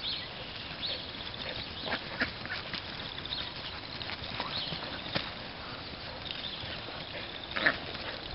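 Animal sounds: a high chirping repeats throughout, with scattered short calls and knocks, the loudest about three-quarters of the way through.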